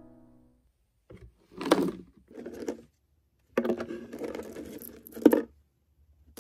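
Dried tangerine slices being rummaged through by hand in a clear plastic container: several short bursts of crisp, dry rustling and light clatter, the longest about halfway through and ending in a sharp click. Piano music fades out at the very start.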